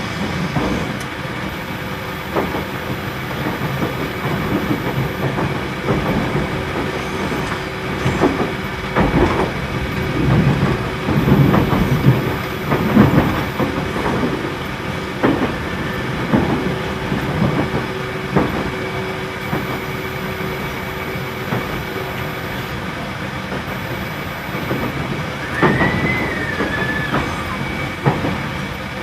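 JR Central 313 series electric train running, heard from inside the car with its air conditioning loud. The wheels knock over rail joints and points in a busy run about 8 to 19 seconds in, with a steady hum through the middle, and a brief high squeal comes near the end.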